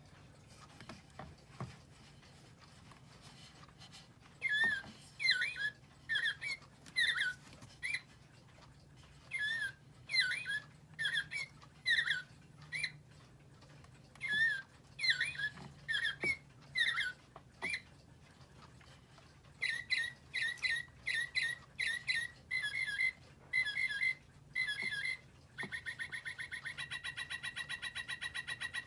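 Battery-operated quartz bird clock's speaker playing recorded birdsong for its hourly chime. A few faint clicks come first, then phrases of whistled chirps separated by short pauses; about 20 seconds in the song changes to quicker chirps, and near the end to a fast, even trill.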